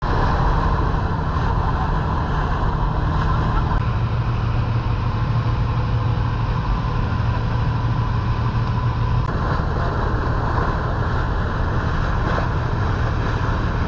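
Boat engine running steadily under way, a deep hum with the rush of the wake along the hull.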